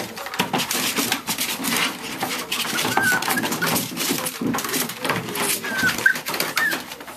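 A litter of Havapom (Havanese × Pomeranian) puppies scuffling and play-fighting, with quick scrabbling and rustling from paws and bodies on the blanket and plastic pool floor. Brief high wavering puppy whines come once about three seconds in and a few times near the end.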